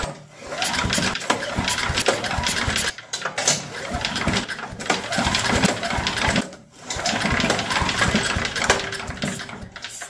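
Craftsman wood chipper's Tecumseh engine being cranked with its recoil pull-start cord, in three long bouts of rapid rattling compression strokes, without firing. It gets no fuel: the carburettor's mixture jets are still screwed shut.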